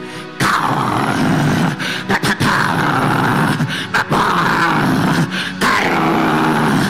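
A man praying loudly in tongues: long phrases broken by short gaps, starting a little under half a second in after soft background music.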